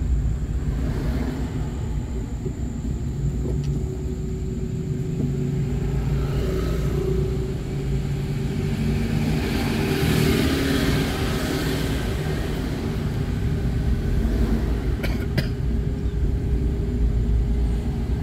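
Car driving along a town road in light traffic: steady engine and tyre rumble. About ten seconds in, a motorcycle passes close by, and two sharp clicks come about fifteen seconds in.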